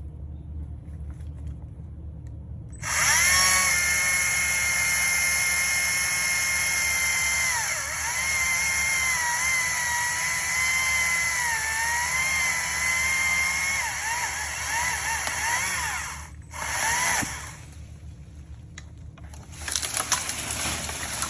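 Stihl MSA 120 C battery chainsaw revving up about three seconds in and cutting through a 6 to 8 inch maple trunk for about thirteen seconds, a high electric whine whose pitch sags and recovers as the chain bogs in the wood. A brief second burst of the saw follows, then a spell of rough crackling noise near the end, over a steady low rumble.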